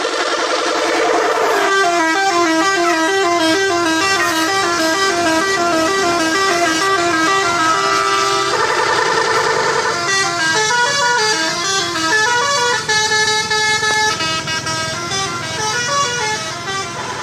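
Indonesian 'telolet' multi-tone bus air horn playing a melody: quick runs of notes stepping up and down, a held chord a little past the middle, then more rising and falling note patterns.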